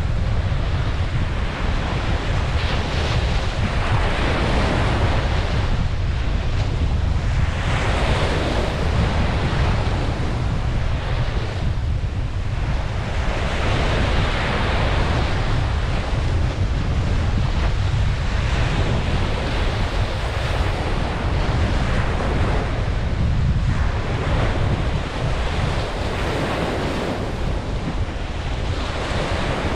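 Ocean surf breaking and washing up a beach, swelling and fading every few seconds over a constant deep rumble.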